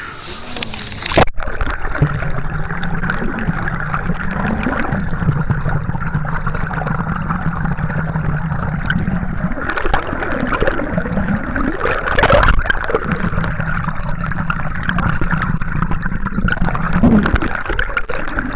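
A splash about a second in as the camera goes under water, then muffled underwater gurgling and rushing water, with a steady low hum from the boat's motor heard through the water.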